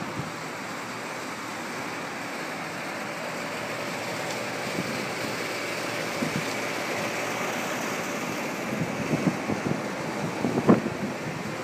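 A steady rushing noise, with wind buffeting the microphone in irregular gusts that grow stronger over the last few seconds.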